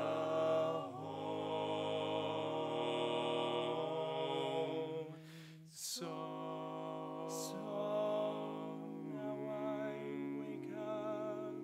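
Male barbershop quartet singing a cappella in four-part close harmony: long held chords, broken once about halfway through by a short pause for breath before the next chord.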